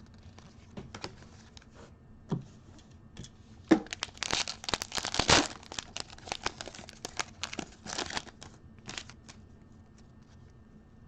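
Trading-card pack wrapper being torn open and crinkled. A dense cluster of sharp rips and crackles comes about four to six seconds in, with scattered lighter crinkles around it.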